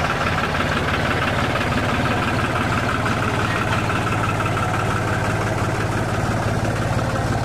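Tractor engine idling steadily, a continuous low hum with fine, rapid even pulses.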